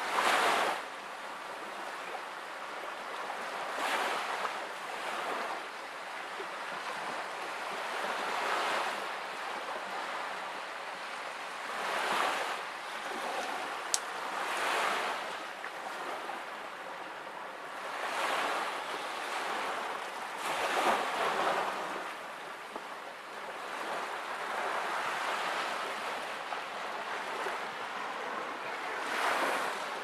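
Sea waves washing against a stone shore, the sound swelling and fading every few seconds. There is a single sharp click about fourteen seconds in.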